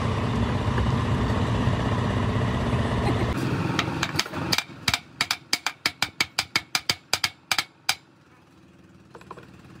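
A low engine drone runs for about four seconds and fades. Then comes a quick, even run of about sixteen sharp metallic hammer blows, four or five a second, ending about eight seconds in, typical of hammering on gearbox parts during dismantling.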